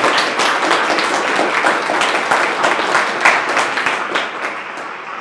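Applause: many hands clapping together, thinning out and growing quieter near the end.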